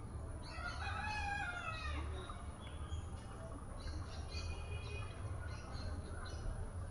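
A rooster crowing once, a call of about a second and a half that falls in pitch at the end, followed by smaller birds chirping, over a steady low rumble.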